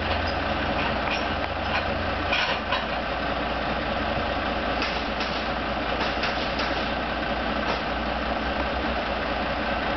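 Lumber delivery truck's diesel engine idling steadily, with a few light clanks and clicks over it.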